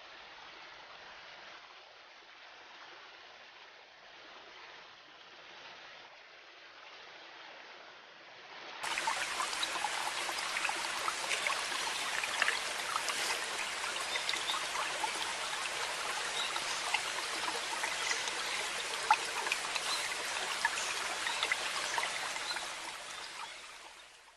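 Running river water as a steady rush. It is faint at first, then suddenly louder and crisper about nine seconds in, and it fades out at the end.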